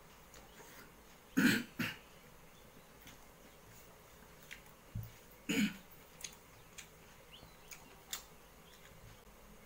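A man clearing his throat twice while eating, about a second and a half in (two quick rasps) and again about five and a half seconds in, with faint clicks of chewing and lip smacks between.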